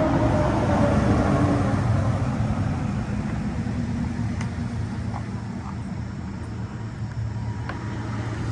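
A steady engine or motor running with a low hum, its whine falling in pitch at the start, with a few faint clicks over it.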